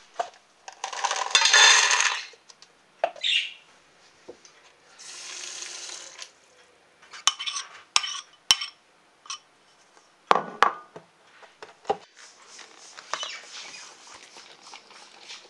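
Dog food being put together in a stainless steel bowl: food tipped in with rustling, and a spoon clinking and scraping against the metal bowl. Near the end, fainter clicking as a dog eats from a bowl.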